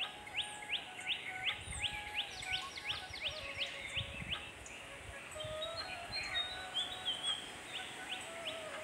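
A bird calling in a rapid run of short, falling notes, about four a second, which stops about four seconds in and starts again near the end. Steady higher tones run underneath, with a few low thumps.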